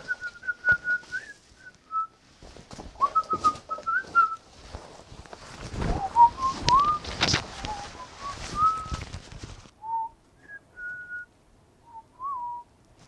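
A man whistling a simple tune in short sliding notes, over the rustle and flap of clothing as he pulls off a sweater and swings on a leather jacket. The whistling thins to a few scattered notes near the end.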